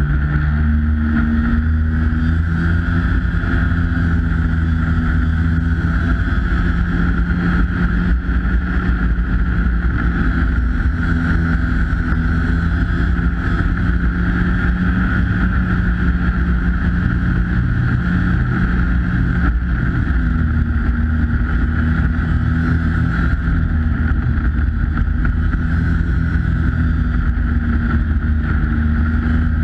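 Polaris 340 Classic snowmobile's two-stroke engine running steadily under way, its pitch easing and rising a little a few times as the throttle changes.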